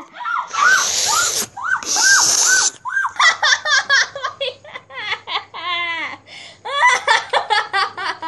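A girl laughing hard: breathy, gasping laughs at first, then quick runs of short ha-ha bursts that go on to the end.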